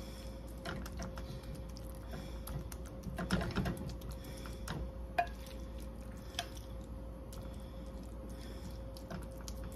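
A metal fork clicking and scraping against a glass bowl and a stainless steel skillet as shredded chicken and black bean filling is scooped and spread on a tortilla: light, irregular clicks, with a louder patch of scraping about three and a half seconds in. A faint steady hum runs underneath.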